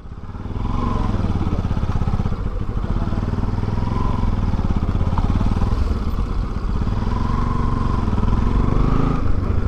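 Motorcycle engine running steadily at low speed, heard from the rider's seat, growing louder in the first second as the bike pulls along.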